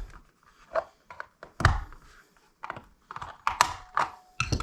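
Hard clicks, knocks and scrapes of a screwdriver prying and twisting at the housing of a mechanical seatbelt-warning chime module, with one louder knock about a second and a half in and a brief faint ringing tone near the end.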